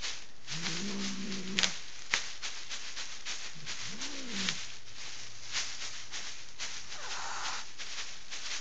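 Plastic dust sheeting crinkling and crackling as an angry tabby cat bites and tugs at it and shifts on the bed. Over it the cat gives a low growling yowl from about half a second in, then a short rising-and-falling yowl around four seconds in, and a low, steady growl through the second half.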